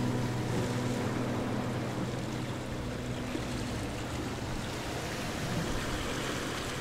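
Background music fading out during the first few seconds, giving way to a steady rushing noise with no clear tones.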